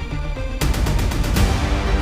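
Background music with a heavy bass beat and a quick run of sharp percussive hits about half a second in, lasting under a second.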